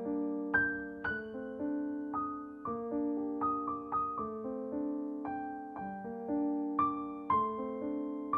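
Background music: a gentle piano piece, notes and chords struck one after another and left to fade.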